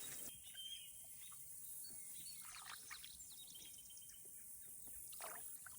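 Quiet outdoor ambience with a few faint, high bird chirps.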